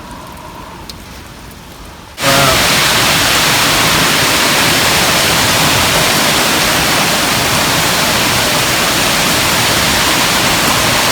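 Heavy rain and strong wind of a severe thunderstorm: a quieter hush that jumps suddenly to a loud, steady rush about two seconds in.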